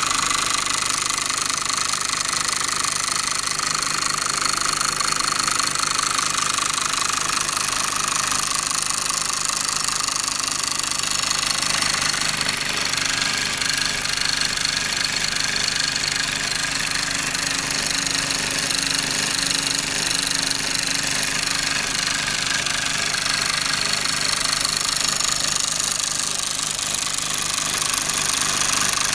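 Mamod toy steam engine running steadily at speed, a fast rattling beat over a steady hiss, as it drives a thin belt to a pulley.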